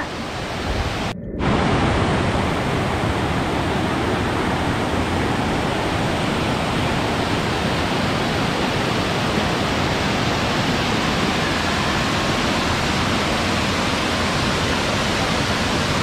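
Waterfall cascading over rocks: a steady, loud rush of water, briefly cut off about a second in.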